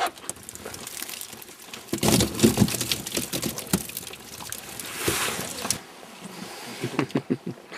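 A landing net full of small fish emptied onto a boat's deck: wet slapping and pouring of fish and water, in two main bursts about two seconds and five seconds in.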